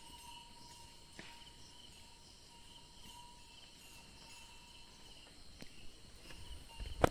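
Insects chirping steadily in a quiet pasture, with a sharp knock just before the end.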